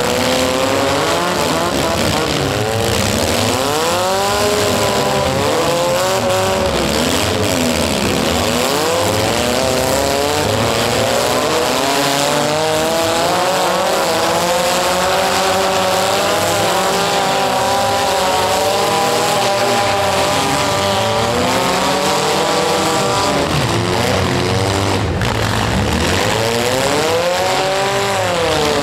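Several compact cars' engines revving up and down at once, overlapping in a continuous loud racket of rising and falling pitches, in a demolition derby heat.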